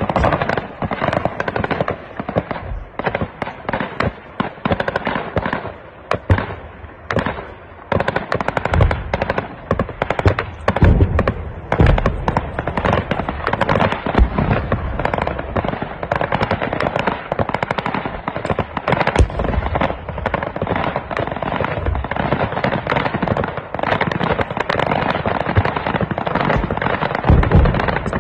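Sustained heavy gunfire: rapid, overlapping shots and machine-gun bursts that go on without a break, with a few deeper, louder thuds among them.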